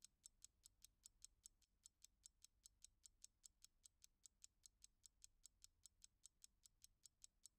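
Faint, fast, even ticking of a mechanical timepiece's movement, about five ticks a second.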